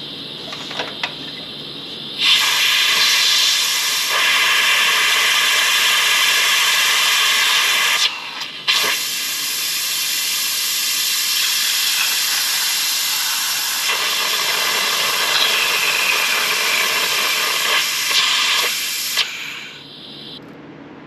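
Mityvac pneumatic bleeder running on compressed air: a loud steady hiss that starts about two seconds in, cuts out briefly around eight seconds in, and stops near the end.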